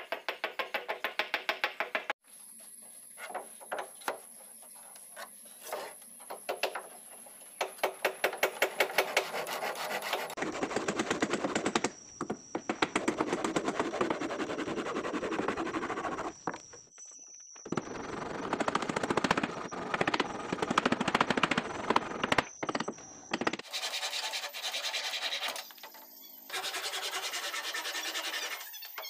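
Hand work on a wooden boat hull: a quick run of hammer blows, about five a second, then scattered knocks and long stretches of rasping, scraping wood-shaping noise.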